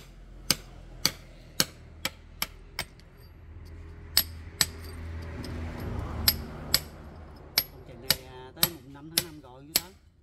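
Hammer striking a steel chisel to chip into a brick wall: sharp, ringing metal-on-metal strikes, about two a second, with a couple of short pauses.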